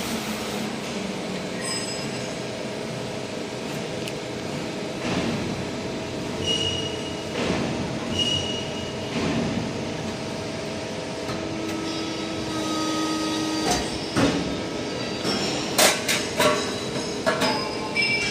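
CNC hydraulic press brake running steadily, with short whines as the machine moves through its bend cycle. Several sharp metal clanks come near the end.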